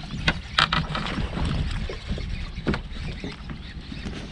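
Steady low rumble of wind and water on an open bass boat, with a few short sharp knocks and clicks.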